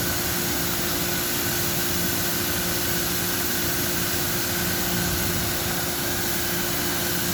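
Pressure washer running steadily, its pump and motor humming under the hiss of the water spray as it rinses the soaped cooling fins of an air conditioner condenser.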